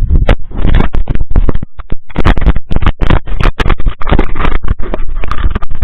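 Loud, rapid, irregular knocking and rumbling of a camera riding on an RC car over snowy ground, distorted by its own loudness.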